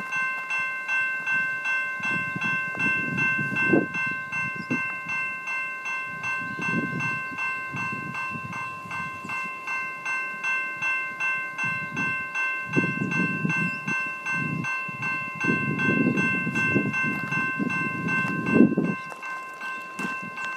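A General Signals Type 2 electronic level crossing bell ringing, a steady, fast, evenly repeating electronic ding that warns road traffic a train is approaching while the flashing lights operate. Patches of lower rumbling noise come and go underneath.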